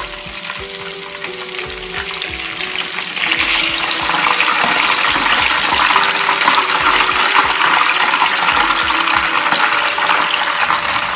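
Breaded chicken katsu deep-frying in hot oil in a small frying pan: steady sizzling and crackling that gets louder about three seconds in.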